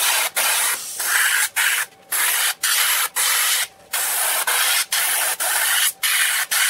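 Airbrush spraying black paint with a loud hiss, in spurts cut by many short breaks.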